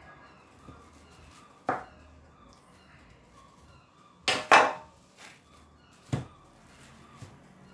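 A kitchen knife cutting through firm, chilled scone dough and knocking on the tabletop: single sharp knocks about two seconds apart, with the loudest a quick double knock in the middle.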